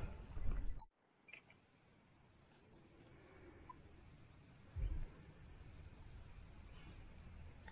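Small birds chirping in a quiet dawn background: many short, high chirps that drop in pitch, scattered irregularly. A louder noise cuts off abruptly just under a second in, and a brief low thump comes about five seconds in.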